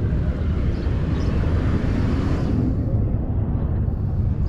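Road vehicle passing close by, its noise swelling about a second in and dying away after about three seconds, over a steady low rumble.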